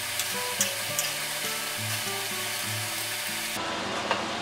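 Linguine and crisped ham sizzling in a hot frying pan while being tossed with tongs, with a few sharp clicks of the tongs in the first second. The sizzle cuts off suddenly about three and a half seconds in. Background music with held notes plays underneath.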